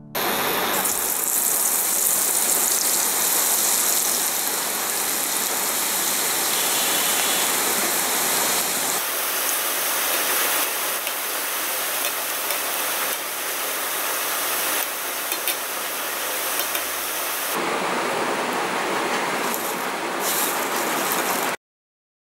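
Okra strips in gram-flour batter deep-frying in hot oil: a steady sizzle that cuts off abruptly near the end, with a few brief clicks about two-thirds of the way through.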